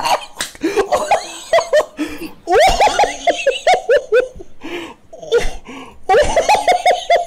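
A person laughing heartily in several bouts of quick, repeated ha-ha's.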